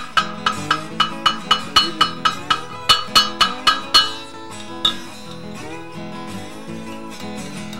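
Hand hammer striking hot iron on a steel anvil in quick, ringing blows, about four a second, fast because a small piece like a little heart cools quickly. The blows stop about four seconds in, with one last strike a moment later; acoustic guitar music plays underneath.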